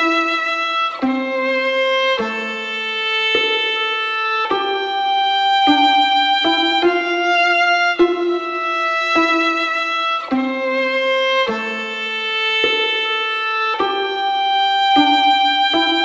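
Instrumental background music: a slow melody of held notes, a new note about once a second.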